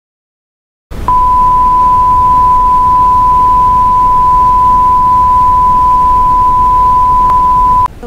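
A loud, steady electronic tone on one pitch, starting about a second in and held for nearly seven seconds over a background hiss, then cutting off suddenly: a broadcast attention tone opening an emergency message.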